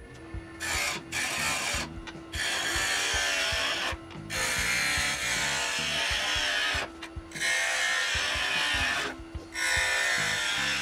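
Wood lathe turning: a turning tool cutting the inside of a Kentucky coffee tree bowl, a loud hiss of shavings in about six passes with short breaks between them. Background music plays underneath.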